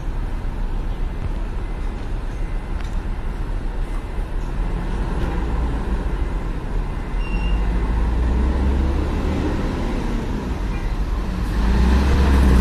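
A coach's diesel engine running with a steady low rumble, growing louder towards the end as the coach pulls away and passes close by.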